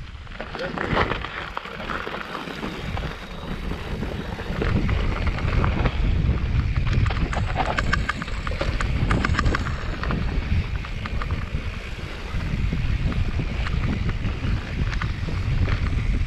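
Wind buffeting the microphone of a camera on a mountain bike descending dry dirt singletrack, with the tyres crunching over the dirt and the bike clicking and rattling over bumps. The rumble grows louder about four seconds in as the bike picks up speed.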